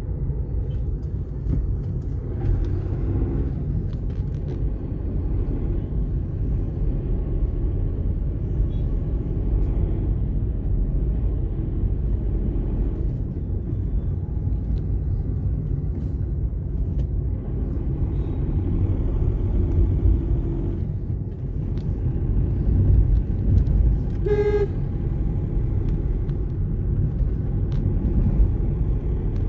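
Steady low rumble of a car's engine and road noise heard from inside the cabin while driving. A single short vehicle horn toot sounds about three-quarters of the way through.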